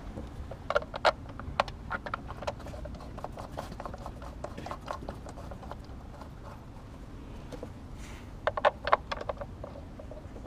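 Sharp plastic clicks and taps as the engine cover of a 2006 Honda Accord 2.4 L i-VTEC is handled and set in place by gloved hands, with its bolts. The clicks come in a cluster near the start, then scattered, then a quick run of louder ones about eight and a half seconds in.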